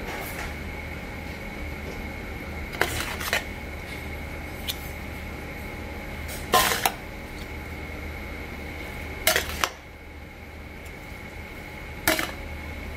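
A metal spoon clanks against a large stainless steel bowl as cooked glass noodles are tossed and mixed. The clanks come in four short clusters about three seconds apart, over a steady background hum.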